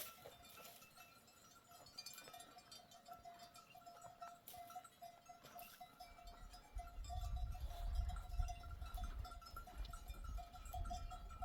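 Sheep bells ringing steadily as the flock grazes, with occasional sharper clinks. A low rumble joins in about two-thirds of the way through.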